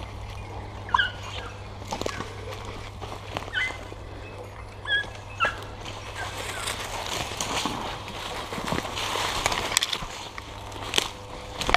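Young dogs giving short, high yelps and whines several times in the first half, followed by a spell of rustling brush and snapping twigs as someone pushes through dense undergrowth.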